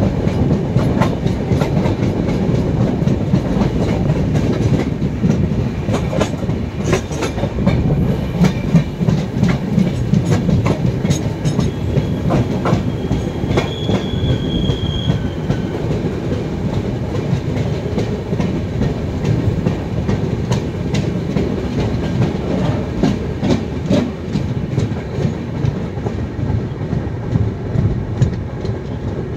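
Passenger train running, heard from the open doorway of a coach: a steady rumble with wheels clicking over rail joints and points, and a brief high wheel squeal about halfway through.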